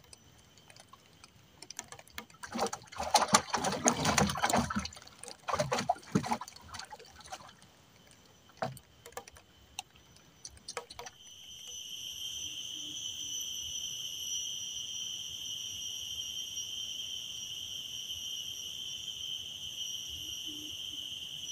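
Water splashing and sloshing in irregular bursts for a few seconds. About halfway through, a steady, shrill insect buzz starts abruptly and keeps going at an even level.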